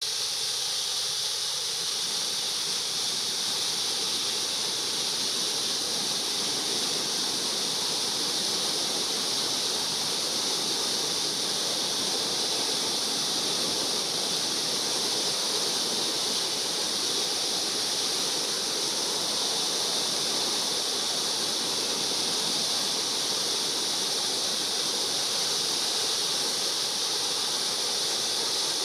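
Waterfall rushing, a steady, even hiss of falling water that stays the same throughout.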